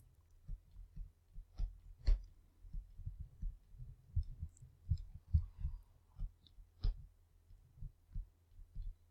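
Irregular soft low thumps on the desk, with a few sharper clicks about one and a half, two and seven seconds in, from a pen tapping and clicking on a graphics tablet.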